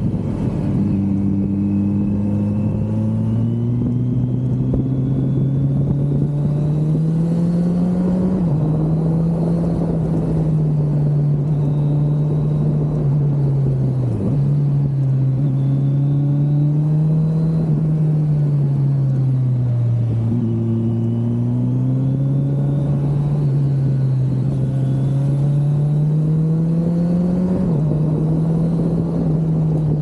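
Kawasaki Z900's inline-four engine under way, its pitch climbing and falling as the bike speeds up and slows, with sudden drops in pitch at upshifts about eight seconds in and near the end. A steady rush of wind runs underneath.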